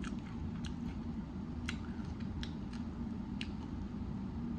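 Close-up chewing of a messy grinder sandwich: several short, wet mouth clicks spaced irregularly, over a steady low hum.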